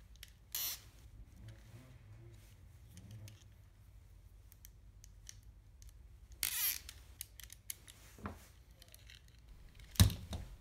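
Plastic parts of a robot arm kit being handled and fitted together: scattered faint clicks and a brief rustle, with one sharp knock about ten seconds in.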